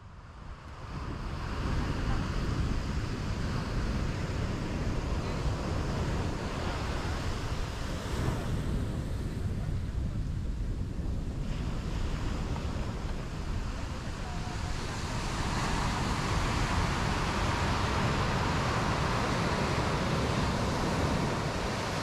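Ocean surf: a steady rush of waves that fades in at the start and swells louder in the last several seconds.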